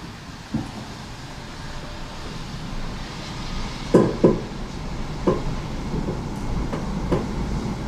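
Tram running along its rails, heard from inside: a steady rumble that slowly grows louder, with sharp knocks as the wheels cross rail joints. There is a quick double knock about four seconds in and single knocks after it.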